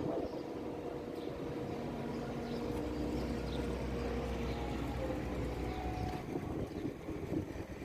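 A heavy machine's engine running steadily, with a deeper low drone from about two and a half seconds in until about six seconds in.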